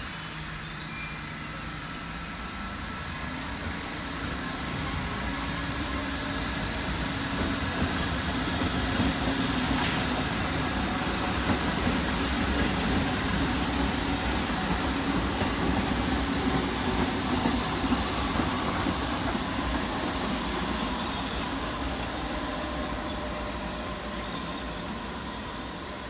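New York City subway train pulling out of a station: steady rumble of wheels on rail and running gear, growing louder as the cars pass and then fading as the train draws away. A brief hiss about ten seconds in.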